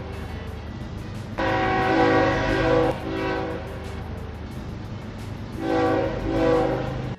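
Train horn blowing twice, each blast a chord of several tones lasting about a second and a half, over a steady low rumble.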